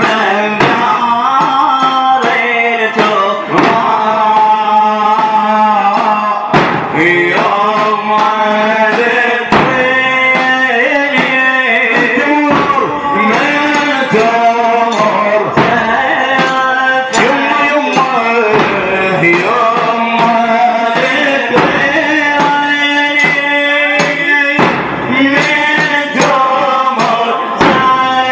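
Male reciter chanting a Shia Muharram latmiya (mourning elegy) in Arabic, held melodic lines over a steady percussion beat.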